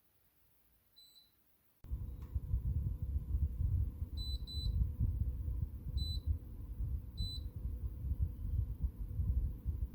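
TOSOT air conditioner's indoor unit beeping five times, short high single beeps with a quick double beep in the middle, the acknowledgement tone it gives when it receives a command. About two seconds in, a louder low rumbling noise with a steady hum starts underneath.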